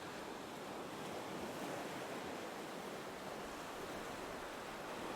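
Gentle ocean waves washing on a shore: a soft, steady surf wash with a slight swell and fall.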